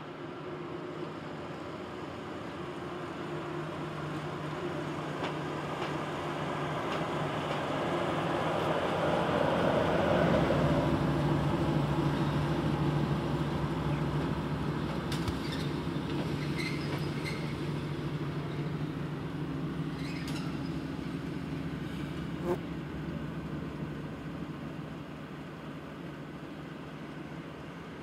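SM42 shunting diesel locomotive running light, its a8C22 eight-cylinder diesel engine humming steadily as it draws near, passes close and moves away: the sound swells to a peak about ten seconds in, then fades. A few short clicks come in the second half.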